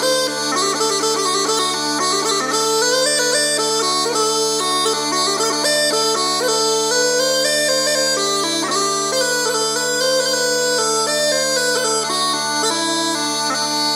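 Mouth-blown smallpipes in D playing a quick, busy melody on the chanter over steady, unbroken drones.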